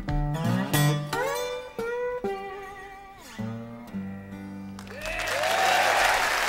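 Blues guitar playing the song's closing phrase: plucked notes with sliding pitches, ending on a held low note. About five seconds in, audience applause starts.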